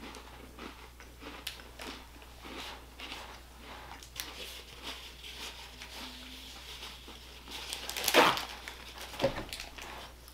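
Quiet crunching and chewing of sandwich cookies, with faint rustling, then a paper towel torn from its roll about eight seconds in, the loudest sound, followed by a smaller tearing rustle.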